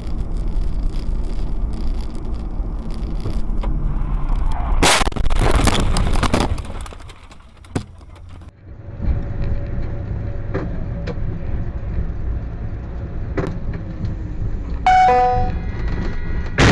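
Dashcam audio of car crashes. Engine and road noise are heard inside the cabin, and about five seconds in comes a loud collision, a dense burst of impacts and crunching lasting over a second. After a cut there is more road noise, a brief tone near the end, and a heavy crash impact right at the end.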